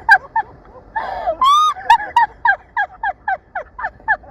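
A woman shrieking and laughing hard in rapid high-pitched bursts, about four a second, with a long squeal about one and a half seconds in.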